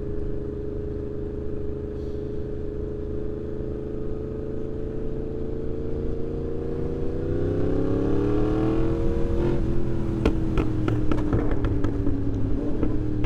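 2024 Yamaha MT-10's crossplane inline-four running through a RaceFit Growler X exhaust. It cruises steadily, then revs up from about seven seconds in. Off the throttle it crackles with a string of sharp exhaust pops and bangs over the last few seconds.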